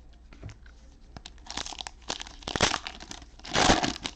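Plastic cello-pack wrapper and trading cards being handled: a run of crinkling and rustling that starts about a second and a half in and is loudest near the end.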